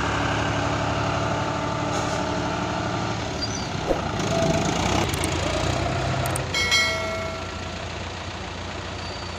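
Combine harvester's engine running as the machine drives across a field. The steady hum turns rougher about three seconds in, with a knock and a short higher squeal, then fades somewhat near the end.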